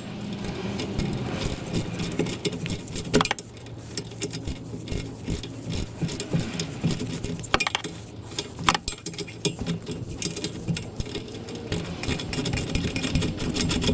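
Metal hand tools and hardware clinking and rattling in irregular sharp clicks, over a low steady hum.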